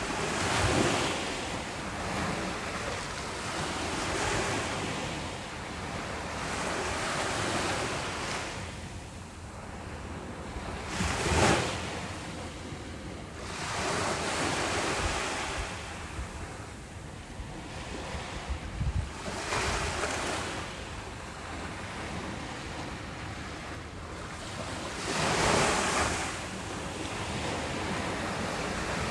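Ocean waves breaking and washing ashore, the surf swelling and fading every few seconds, with the biggest breakers about a second in, near the middle and near the end. Wind buffets the microphone with low rumbling gusts.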